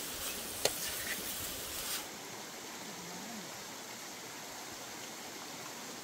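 Steady rush of flowing river water, with a single sharp click a little over half a second in.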